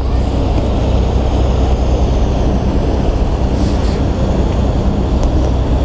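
Diesel engine of a passing harbour tour boat running steadily, a constant low drone.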